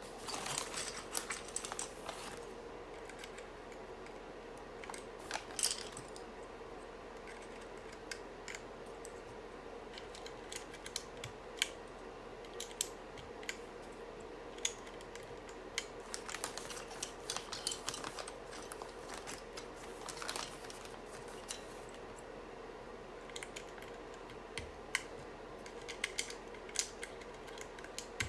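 Keys being pressed on a UT47.2 40% mechanical keyboard: sharp clacks in irregular clusters with pauses between, over a faint steady hum.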